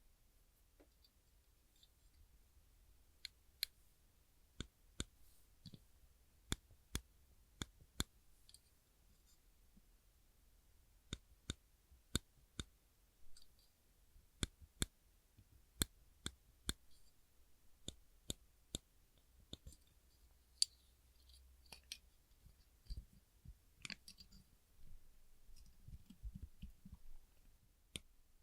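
Black spring clips being pressed open and released, giving sharp, irregular clicks with short pauses between them. Softer handling noises come in near the end.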